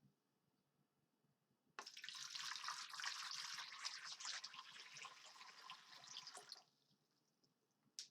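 Water poured from a pitcher into a basin, starting suddenly and splashing for about five seconds, easing off before it stops. A single sharp click follows near the end.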